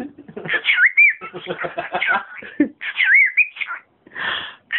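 Cockatiel gibbering: garbled, speech-like mimicked chatter broken by two whistled rising-and-falling glides, with a short breathy burst near the end.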